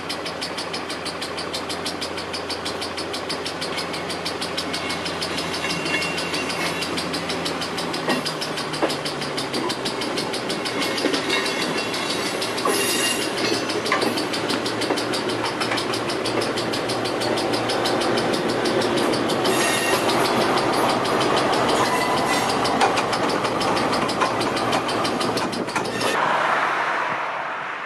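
Diesel railcar idling, then pulling away and passing across a level crossing, getting louder as it goes by, with wheels clicking over the rail joints. A rapid, steady ringing, fitting the crossing's warning bell, runs until the sound fades out near the end.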